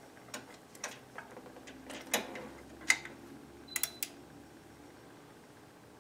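Light, irregular metal clicks and clinks of a hand wrench working a bolt, about eight over the first four seconds.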